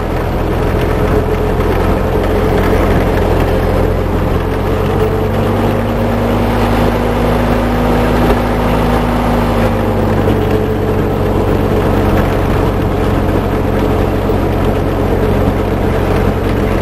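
1958 Massey Ferguson tractor engine running steadily under load, driving a snowblower that is throwing snow. The engine note rises a little for a few seconds near the middle, then settles back.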